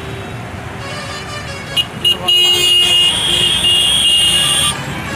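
Vehicle horn sounding in street traffic: two short toots, then a loud, high-pitched blast held for about two and a half seconds that cuts off suddenly.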